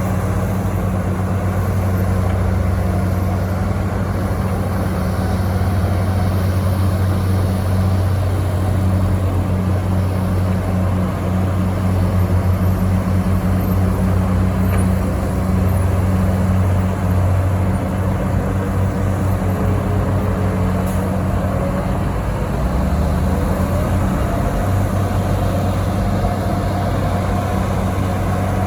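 Heavy diesel earthmoving engine running steadily at a low, even pitch.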